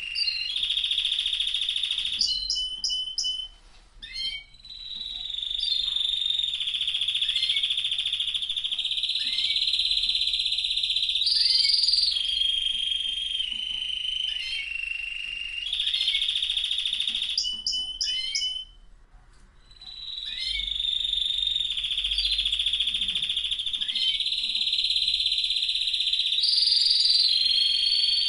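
Domestic canary in full, continuous song: long held whistles and rolling trills, broken by runs of rapid clicking notes, with two brief pauses and rising glides near the end.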